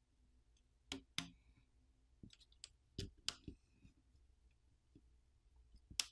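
Faint scattered clicks and taps from a plastic pry tool working at a press-fit flex-cable connector inside an opened smartphone, as the battery cable is disconnected: two sharp clicks about a second in, a few more around three seconds in, and one near the end.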